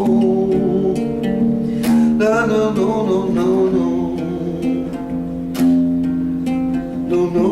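Music: acoustic guitar playing an instrumental passage of an MPB song, sustained chords with a few strong strums.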